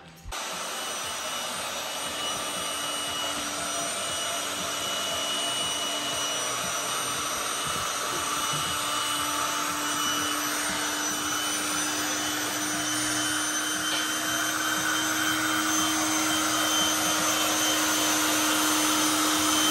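Handheld electric air pump running steadily as it inflates an Alpacka Gnarwall packraft. It starts abruptly just after the beginning and slowly gets louder as it runs.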